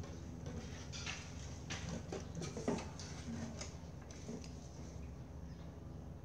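Small clicks and soft crackles of fingers pulling cooked fish flesh apart and off the bones, with one sharper tap about two and a half seconds in, over a steady low hum.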